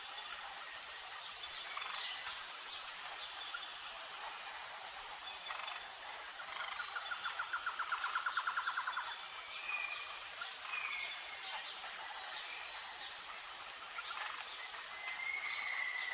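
Tropical forest ambience: a steady, high-pitched insect chorus with a rapid pulsing trill about halfway through and a few short whistled bird-like calls near the end.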